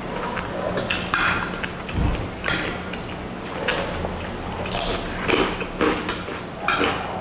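Close-miked eating: mouth-full chewing with wet smacks and sharp clicks every second or so.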